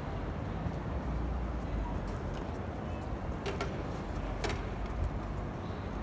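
Outdoor city plaza ambience: a steady low rumble of distant traffic and air, with a few sharp clicks a little past the middle.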